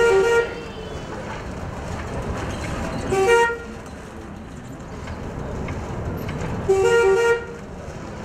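Minibus horn honking three short times, about three and a half seconds apart, over a steady low engine and traffic rumble.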